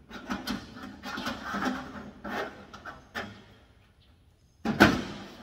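Sheet-metal cabinet shelf scraping and clattering as it is slid in and seated on its support tabs, with one sharp knock near the end.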